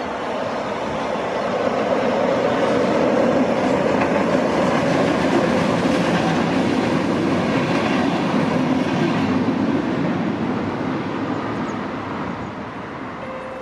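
A Renfe UT-440 electric multiple unit passing close by on its rails. The noise of its wheels and running gear builds over the first couple of seconds, holds loud while the cars go by, then fades away as the train recedes.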